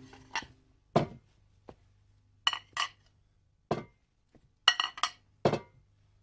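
White ceramic dinner plates clinking as they are set down one by one on a dining table: about ten sharp, ringing clinks at uneven intervals, some in quick pairs.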